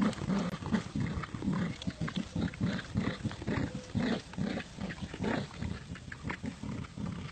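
Dogs growling in play while tugging against each other on a rope toy: a rapid, unbroken run of short growls.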